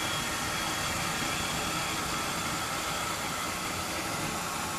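Kitchen tap running steadily into a large metal pot.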